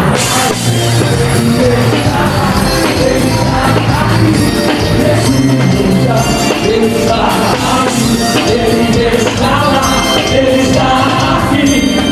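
Worship song played live by a band, with a steady bass line under a sung melody.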